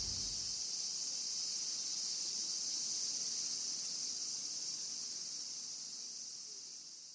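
Steady cicada chorus, a high buzzing drone that fades out near the end.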